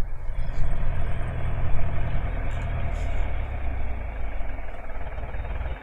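A vehicle engine running steadily, easing off a little near the end.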